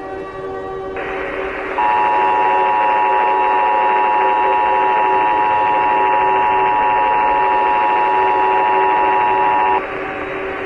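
Emergency Alert System two-tone attention signal (853 and 960 Hz) sounding steadily over a hissy, static-laden background, starting about two seconds in and cutting off suddenly near the end. It announces the Emergency Action Notification that follows.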